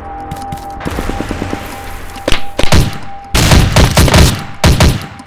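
Automatic rifle fire from an M16-style rifle: a fast run of faint shots, then two single loud cracks, then loud rapid bursts over the last two seconds.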